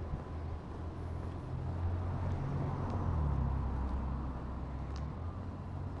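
A motor vehicle driving past, its low engine hum building to a peak about halfway through and then fading.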